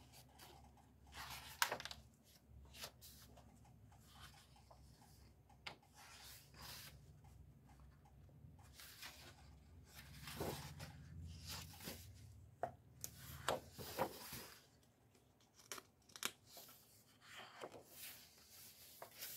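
Paper pages of a colouring book being flipped by hand: faint, irregular rustles and flaps of paper, one page after another.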